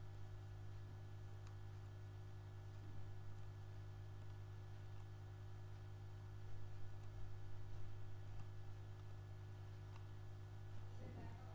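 Steady low hum with faint, scattered clicks.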